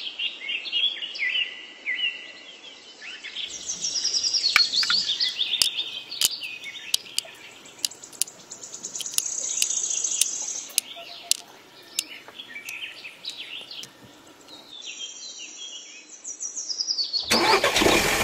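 Birds chirping and calling, with scattered light clicks as small clay bricks are set down on a toy truck. About a second before the end a loud noise comes in suddenly.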